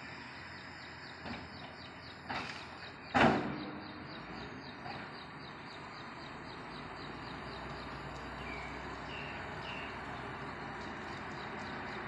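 Metal clanks from a reach stacker handling steel shipping containers: two lighter knocks, then a much louder clang about three seconds in that rings on briefly, over a steady outdoor hum. A faint rapid ticking runs underneath, and a few bird chirps come near the end.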